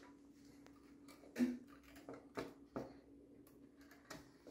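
A few light clicks and knocks from hands working on a woofer's speaker wires, the loudest about a second and a half in, over a faint steady hum.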